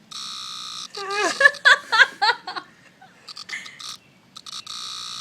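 A cicada held in the hand buzzing in stop-start bursts as it is touched: a steady buzz, then a few short buzzes, then another steady buzz near the end, Morse-code-like. A person's voice sounds briefly between the first and the later buzzes.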